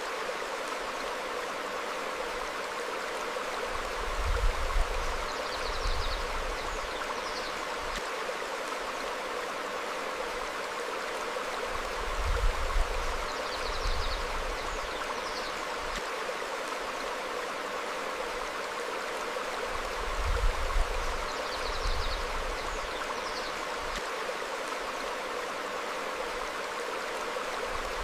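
Stream flowing steadily over rocks, with short bird chirps and brief low rumbling surges, the loudest moments, recurring about every eight seconds.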